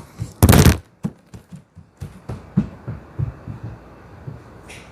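Handling noise: a loud bump about half a second in, then a run of soft, irregular low knocks and taps.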